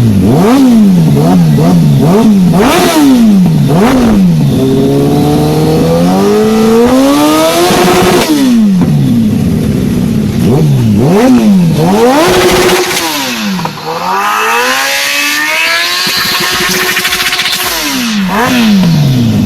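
Kawasaki ZX-series inline-four sport-bike engine revved hard: a run of quick throttle blips, then longer pulls where the revs climb steadily before dropping back, repeated several times.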